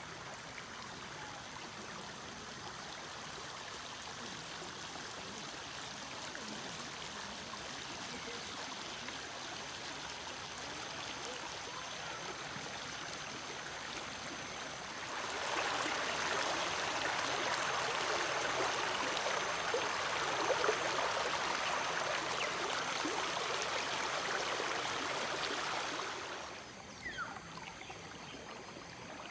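Water running in a stream, a steady rushing that turns louder about halfway through and drops back near the end.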